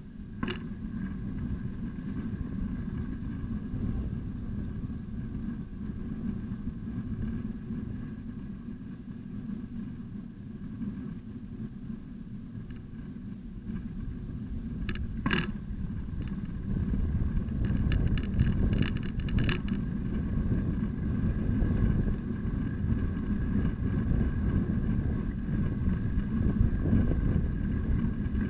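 Low, steady rumble of a bicycle rolling along a paved path, picked up by a bike-mounted RidEye camera, growing louder about two-thirds of the way through. A couple of sharp clicks stand out, one right at the start and one about halfway.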